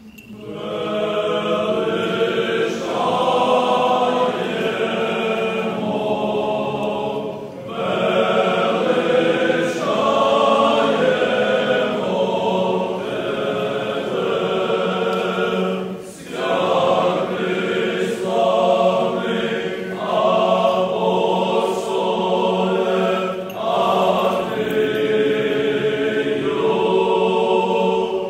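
A group of voices singing Orthodox church chant unaccompanied, in long phrases with brief pauses about every eight seconds.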